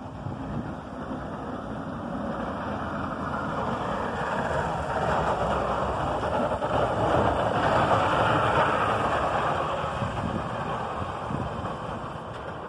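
Snowplow dump truck driving past with its plow blade down: engine noise mixed with the rush of snow pushed off the blade. It grows louder to a peak about eight seconds in, then fades as the truck moves away.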